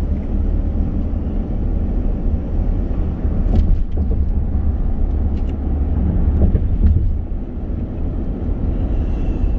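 A car driving on the road: a steady low rumble of engine and tyre noise, with a few faint clicks.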